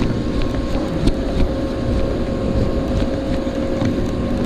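Wind buffeting the microphone over a steady machinery hum, with a few faint clicks as a baitcasting reel is cranked.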